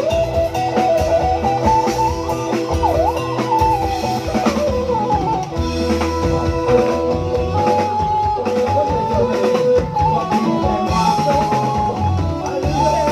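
Thai trae wong brass band playing an instrumental passage: a melody line that slides and holds notes, over bass and a drum kit keeping a steady beat.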